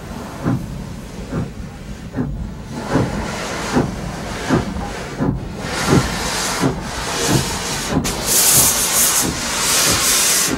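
Narrow-gauge steam locomotive starting away: regular exhaust chuffs, gradually quickening, with steam hissing from the open cylinder cocks that grows loud near the end.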